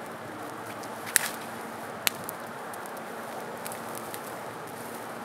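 Open brushwood campfire burning with a steady rush and scattered crackling, with two sharp pops, one about a second in and another about two seconds in.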